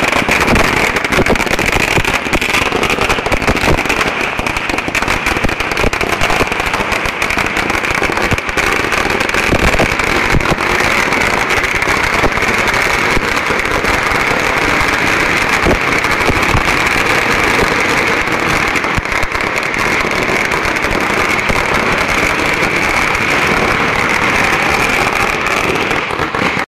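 Firecrackers bursting on the road in a loud, dense, unbroken crackle of rapid bangs, which cuts off suddenly at the end.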